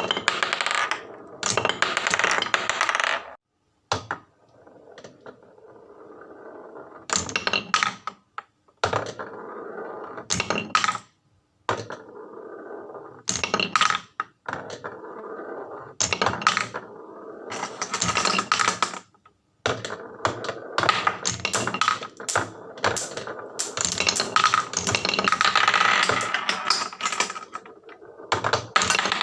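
Marbles rolling and clattering down a HABA wooden marble run: a rolling rumble on the wooden tracks with many sharp clicks as they drop and knock against the wooden pieces. The sound cuts off abruptly a few times and then resumes.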